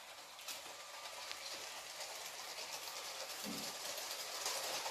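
Bluebrixx ET 423 clip-brick model train running on plastic track, its plastic wheels without ball bearings clattering steadily over the rails and getting louder as it comes closer.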